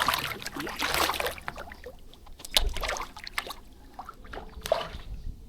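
Water splashing and sloshing, loudest in the first second, then a few sharp separate slaps: large catfish churning the pond surface as they snatch food thrown to them.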